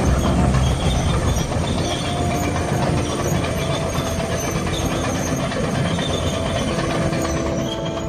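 Caterpillar D8R crawler bulldozer driving on its steel tracks: the six-cylinder diesel engine running steadily under the grinding clatter of the track chains, heaviest at the start.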